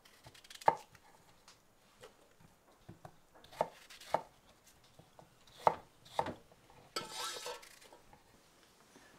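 A knife chopping produce on a board in a few separate, irregular strokes, then a short clatter of cut pieces landing in a steel pot near the end.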